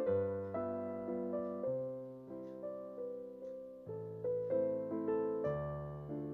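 Soft background piano music: a slow, gentle melody over sustained chords.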